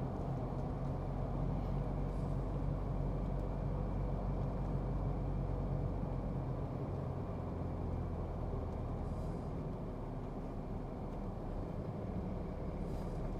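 Pickup truck driving at a steady pace: a constant engine drone with road and tyre noise.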